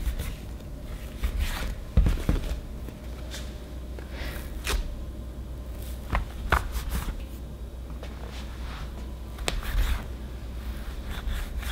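Plastic bench scraper cutting and shaping bread dough on a stone countertop: scattered sharp taps and short scrapes as the blade meets the counter, with soft handling of the dough, over a low steady hum.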